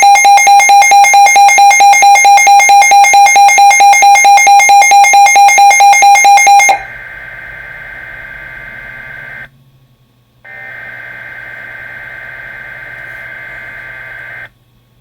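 Weather radio's alert alarm beeping loudly and rapidly, about five beeps a second, for about seven seconds. Then two long bursts of buzzing two-pitch data tone, a second apart: the digital SAME alert header that triggers the warning alarm.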